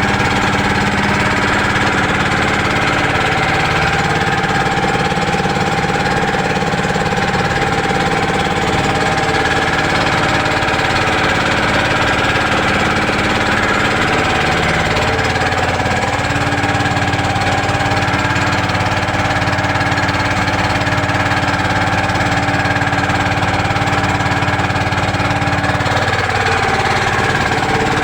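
A small engine running steadily and loudly, its pitch dipping slightly near the end.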